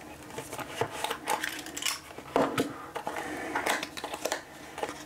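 Irregular clicks, taps and scrapes of a Stanley utility knife working at a cardboard box to cut it open.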